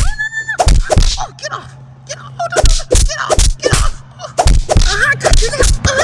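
A string of sharp hits, one or two a second, like punch and whack effects in a fight, with short high squeaky cries and voice-like yelps between them.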